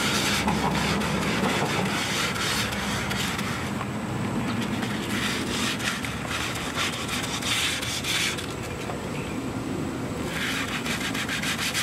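Hand-sanding a boat's vinyl rub rail with a square of 200-grit sandpaper: scratchy back-and-forth strokes that come in repeated spells. This is the finer second grit, smoothing out the tiny scratches left by the coarse 100 grit.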